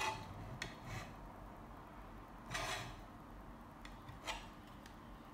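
Faint handling of the wall-clock camera and its bracket: a few light clicks and knocks, with a brief rubbing scrape a couple of seconds in.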